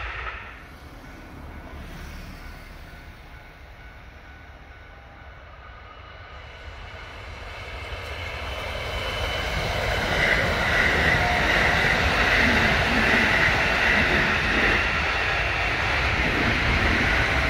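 Kintetsu electric train approaching and running past on the track. The sound is quiet at first, then wheel-and-motor noise swells from about seven seconds in and stays loud to the end.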